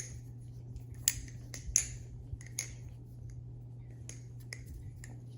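TheOne Alien balisong (butterfly knife) being flipped: a series of sharp metal clicks and clacks at irregular intervals as the anodized aluminium handles and blade tang strike each other, the loudest about one and nearly two seconds in, over a low steady hum.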